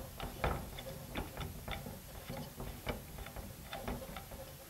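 A string of light, irregular clicks and ticks as the side handle is screwed by hand into the gear housing of a DeWalt DCG412B cordless angle grinder.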